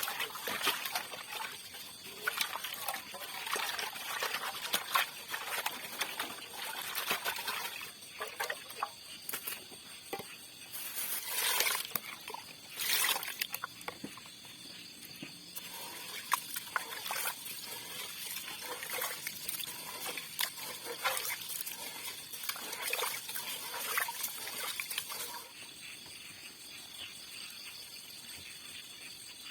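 Water splashing, trickling and sloshing in irregular bursts, over a steady high insect chorus; the splashing stops about 25 seconds in.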